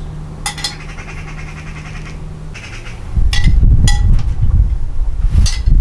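A buzzy animal call over a steady low hum. About three seconds in, a loud low rumble starts, and a metal spoon clinks sharply against a ceramic bowl a few times.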